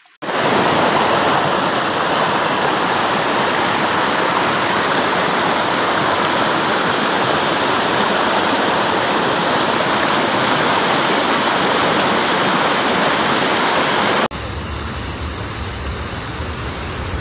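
Water rushing and splashing white over rocks in a stream in spate, a loud steady rush. About fourteen seconds in it changes abruptly to a quieter, deeper rush of water pouring over a dam spillway.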